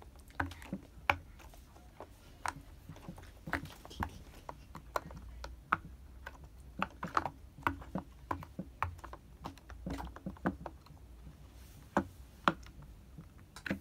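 Silicone pop-it fidget toy's bubbles pressed in one after another by fingers: a string of irregular sharp pops, some in quick runs and some single, with short gaps between.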